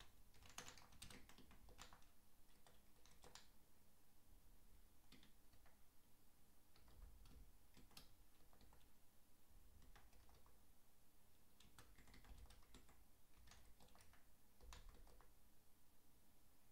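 Faint computer keyboard typing: irregular keystroke clicks in short runs with pauses between them.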